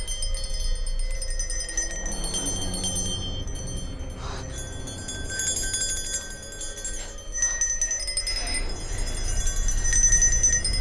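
Small metal grave bell, hung on a cord running down into the grave, ringing repeatedly over a low rumble.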